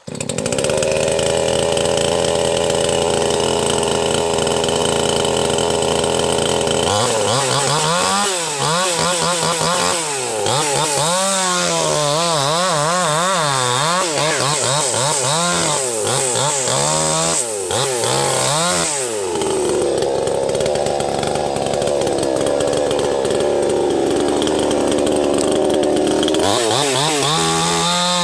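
Two-stroke chainsaw cutting through a fallen tree trunk. It comes up to steady high revs at the start; from about seven seconds in its pitch rises and falls as the chain bites into the wood. It holds steadier again for a stretch in the later part and goes back to wavering near the end.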